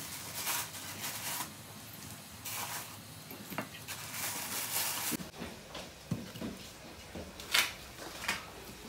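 Faint kitchen handling sounds: scattered light clicks and knocks with a few short rustling or scraping noises.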